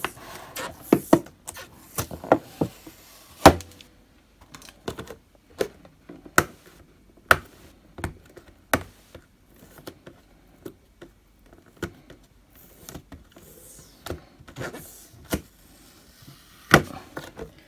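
Fingernails picking at and peeling round sticker seals off a clear plastic box, the thin plastic giving irregular sharp clicks and crackles.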